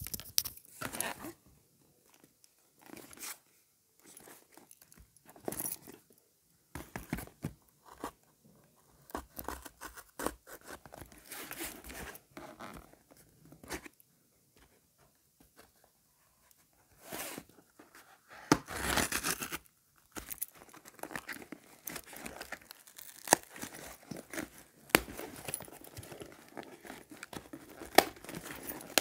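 Packing tape on a cardboard shipping box being slit with a key, then the cardboard torn open by hand: scattered scrapes, rips and crinkles, with one longer, louder rip a little past the middle.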